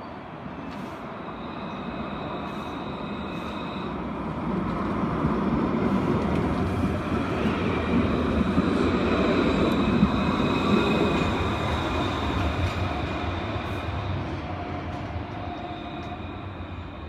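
Low-floor street tram passing close by: the rumble of its wheels on the rails with a steady high whine, growing louder as it approaches, loudest about ten seconds in, then fading as it moves away.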